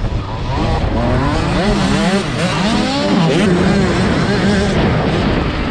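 A small Yamaha dirt bike engine, heard from the rider's helmet camera, revving up and down in pitch as the bike accelerates out of a turn and down a straight. Wind rushing over the microphone sits under it.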